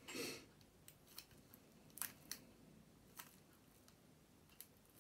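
Faint scratching and clicking of fingernails picking at the plastic shrink-wrap on a deck of cards, hunting for an edge to tear it open. There is a short rustle right at the start, then scattered sharp ticks.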